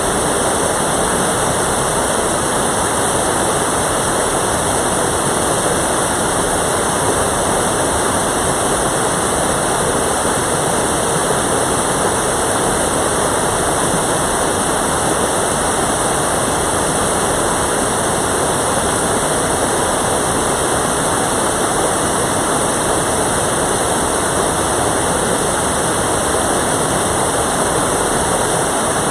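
Mountain valley stream, its water rushing steadily and loudly.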